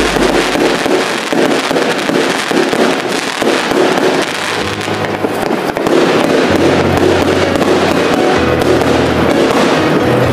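A 268-shot firework cake firing in quick succession, its shots and crackling star bursts running together into a dense, continuous crackle, mixed with a music track that has a steady bass line.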